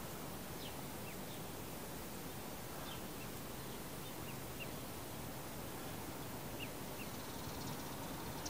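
Black Swedish ducklings peeping: short, high single peeps every second or so over a steady outdoor background hiss.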